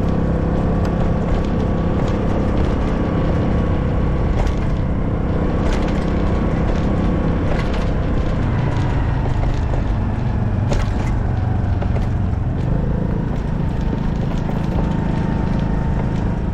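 A motor vehicle engine running steadily, with scattered clicks and knocks.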